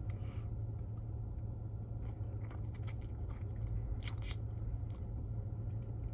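Steady low road and engine noise inside a moving patrol vehicle's cabin, with scattered light clicks and crackles over it.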